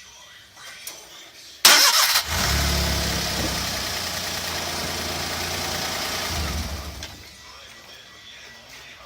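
Daihatsu Hijet Truck S211P's 660 cc three-cylinder engine being started: a short, very loud burst of starter cranking a little under two seconds in, then the engine catches and idles steadily for about five seconds before it stops.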